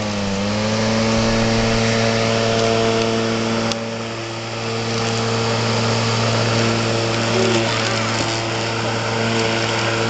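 An R/C robotic lawn mower running with a steady pitched hum. Its pitch dips briefly just after the start and then recovers.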